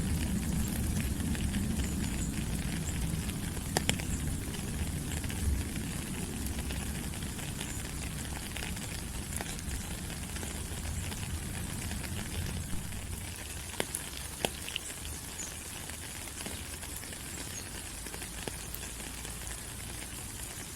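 Steady rain falling on rainforest foliage, an even hiss with scattered louder drips. A low rumble fades out over the first several seconds.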